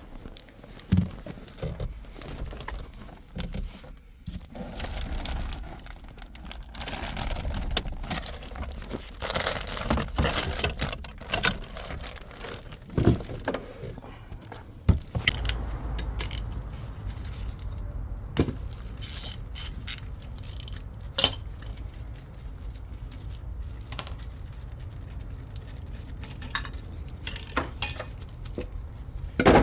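Hand tools and metal parts clinking, scraping and knocking at irregular intervals, with a few sharper knocks, as work goes on around a car engine.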